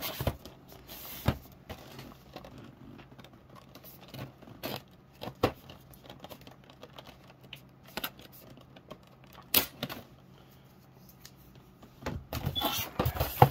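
A cardboard action-figure box being handled as its tape seal is broken and the box opened: scattered clicks and taps, with a denser burst of rustling near the end.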